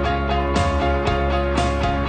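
Background music with a steady beat, pitched instruments sounding a note about every half second.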